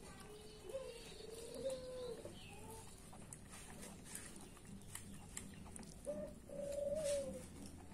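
Doves cooing: a few short low coos in the first three seconds, then a longer coo about six seconds in.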